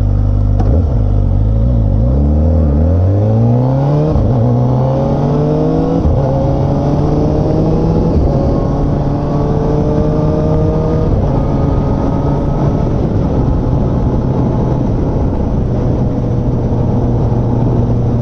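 Kawasaki ZX-4R SE's inline four-cylinder engine accelerating, its pitch climbing and dropping back with quick quickshifter upshifts about four and six seconds in. It then pulls more gently and settles into a steady cruise.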